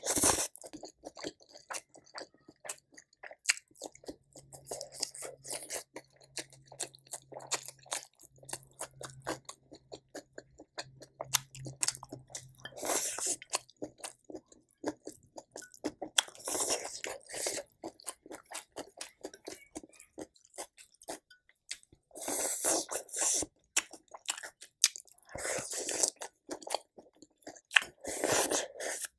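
A person chewing and crunching food close to the microphone, with many small wet mouth clicks and five louder, longer rushes of sound spread through the stretch.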